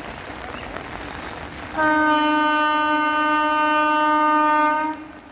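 Indian Railways locomotive horn of an express train passing through a station: one long, steady blast of about three seconds, starting about two seconds in, over the low noise of the passing train.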